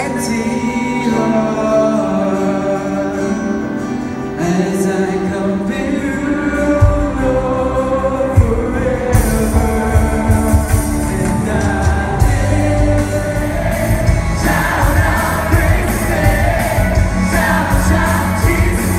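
Live worship band music: a vocalist singing over sustained chords, with drums and bass coming in about seven seconds in and the sound getting fuller near the end.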